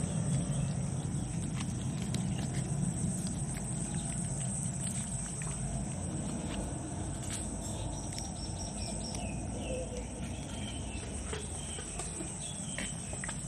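A steady high-pitched insect drone runs without a break. Over it come scattered clicks and rustling from a group of puppies eating kibble and moving about, with a few short high chirps.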